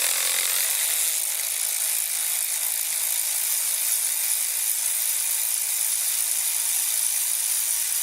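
Compressed-air blowgun blowing a long, steady blast of air that starts and stops abruptly, clearing debris from the spark plug bores of an inline-four engine.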